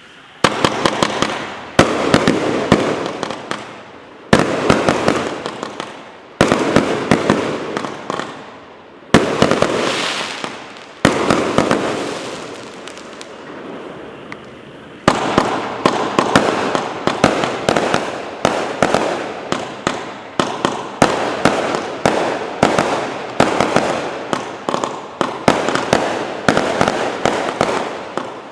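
A 135-shot compound fireworks cake firing. For the first half, single loud shots come about every two seconds, each trailing off over a second or two. About halfway through it turns into a fast string of shots, two or three a second.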